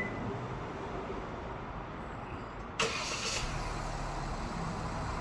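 SsangYong Tivoli Air's engine, started remotely through a smartphone car alarm, cranks briefly and catches about three seconds in, then settles into a steady idle.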